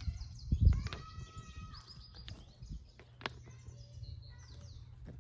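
Birds chirping, with children's voices in the distance. A low thump about half a second in, and a few sharp clicks.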